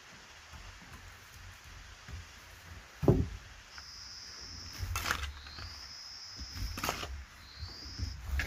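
A hoe chopping into dry, clumpy soil, twice, about two seconds apart, after a dull heavy thump about three seconds in. An insect's high, steady buzz starts just before the chopping and carries on.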